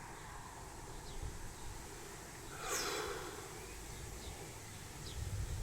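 A person breathing out sharply once through the nose, a little under halfway through, over faint outdoor background noise.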